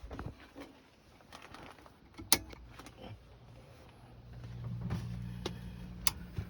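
A few sharp clicks and knocks, the loudest about two seconds in. Then, about four seconds in, a steady low electric hum starts and grows: the HVAC unit's motor starting up once the low-voltage circuit is jumpered on.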